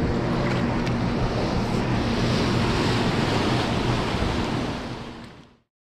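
Turbulent water rushing and churning in a dam's tailrace below a running turbine, over a steady low hum. The sound fades out to silence near the end.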